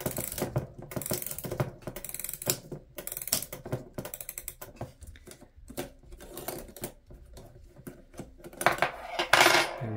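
The time-side mainspring of a 1916 E. Ingraham mantel clock movement being wound with a key: the click and ratchet wheel give quick runs of clicks, thinning out midway. Near the end comes a louder metallic scrape as a mainspring clamp comes off.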